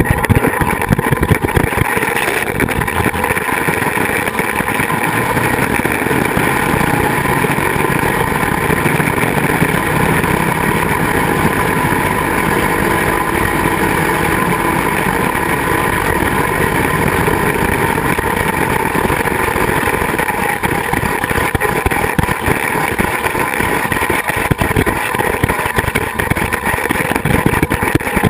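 Zipline (flying fox) trolley pulleys rolling along the steel cable at speed: a steady whir, with wind buffeting the microphone.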